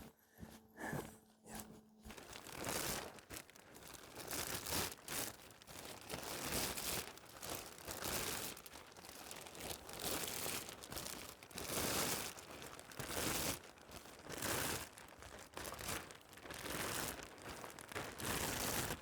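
Plastic sheeting crinkling and rustling as it is handled, in repeated bursts from about two seconds in.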